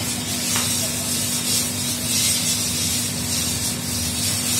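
Bajaj motorcycle on fire, the flames burning with a steady rushing hiss and one short crack about half a second in.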